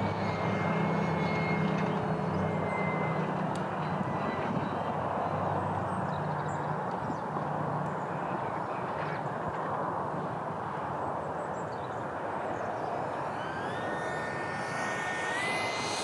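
Six-blade electric ducted fan of a Freewing Eurofighter RC jet flying, a rushing sound with a thin whine. The whine falls slightly in pitch in the first few seconds, fades, then climbs in pitch in steps near the end as the throttle comes up.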